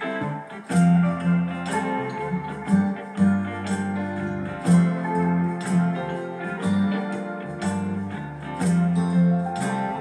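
Instrumental background music led by plucked guitar over a bass line, with plucks or strums about once a second.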